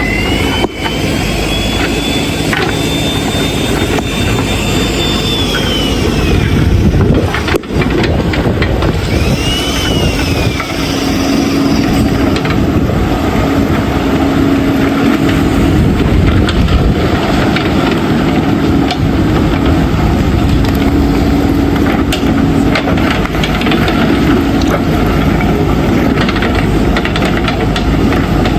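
Diesel engine of a JCB 3DX backhoe loader running, with a high whine that rises and falls over the first seven seconds and again briefly around ten seconds, then a steady hum from about twelve seconds on.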